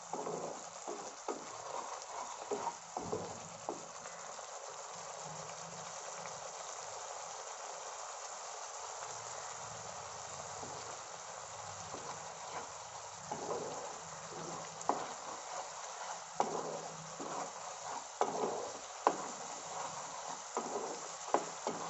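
Thick onion-tomato masala gravy sizzling in oil in a non-stick pan while it is fried down until the oil separates. A spatula stirs and scrapes through it with short knocks in the first few seconds and again through the second half.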